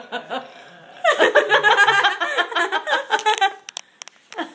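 A woman laughing hard close to the microphone: a loud, rapid run of laughs starting about a second in and dying away after about two and a half seconds.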